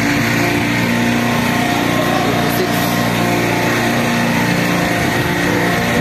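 Steady engine-like machinery drone, a continuous hum with several held low pitches over a noisy wash, not changing through the stretch.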